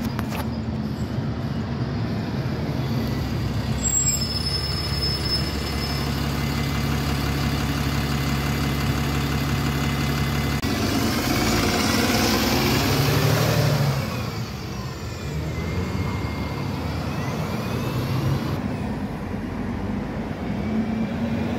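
Double-decker bus engines running in passing street traffic. One bus passes close by about halfway through, its engine and tyre noise swelling to the loudest point and then falling away.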